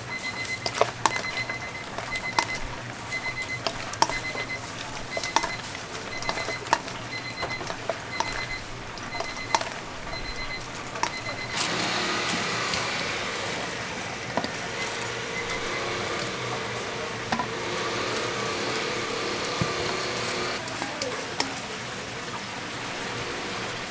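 Scattered clinks and knocks with a high beep repeating about once or twice a second. About halfway through this gives way abruptly to a steady sizzle of chicken deep-frying in oil.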